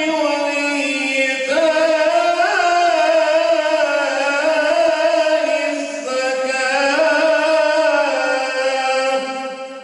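A man's voice reciting the Quran in melodic tajwid style, holding long ornamented notes with wavering pitch. The melody steps up about a second and a half in and again after about six seconds, then trails off at the end.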